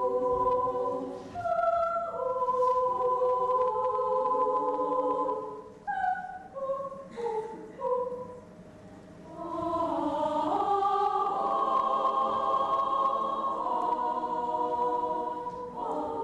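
Children's choir singing in several parts: held chords, then about six seconds in a stretch of short, separate notes, then full held chords again.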